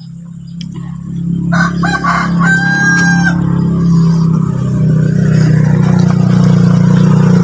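A rooster crowing once, its call ending on a held high note, about two seconds in. Under it a steady engine hum grows louder through the second half and becomes the loudest sound.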